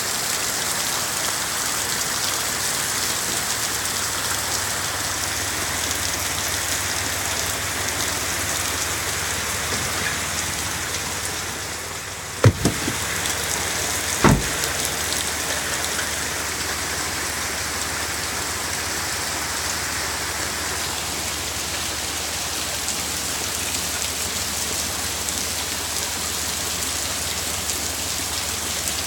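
Heavy rain pouring down steadily onto a flooded lawn. Two sharp knocks come near the middle.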